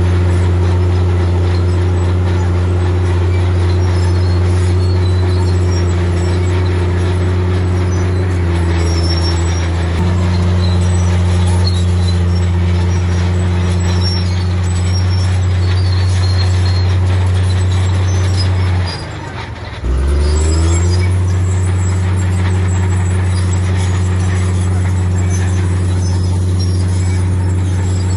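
Heavy diesel engine of earthmoving machinery at a landfill, running loud and steady. About nineteen seconds in, the engine note drops away briefly and then climbs back up.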